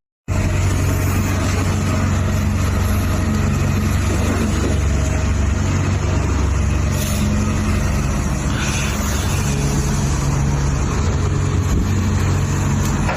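RC excavator's motors running in a steady, loud drone with a low hum, with a couple of brief scraping sounds partway through.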